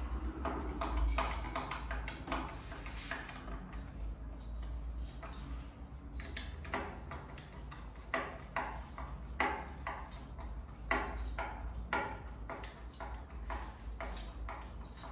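Screwdriver working the screws of a wall-mounted picture frame: a run of short, sharp clicks and taps at an irregular pace, coming thicker in the second half.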